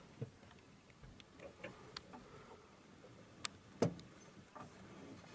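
A handful of faint, scattered clicks and small knocks over a quiet background, the two sharpest about three and a half seconds in.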